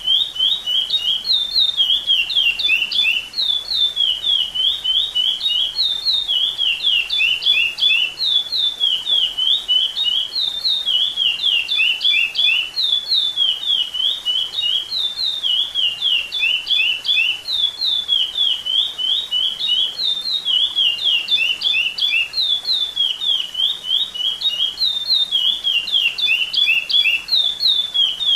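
Chestnut-bellied seed finch (curió) singing a 'repetidor'-type song, the kind used as an encarte to teach young curiós. Clear whistled notes run quickly up and down, in phrases that repeat over and over with barely a pause.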